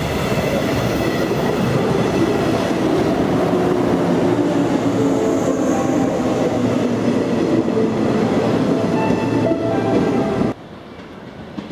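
A JR West 115 series electric train pulls into the platform and runs alongside. There is a loud steady rumble and clatter of wheels on the rails, with several steady whining tones over it. The sound stops abruptly about ten seconds in, leaving a much quieter background.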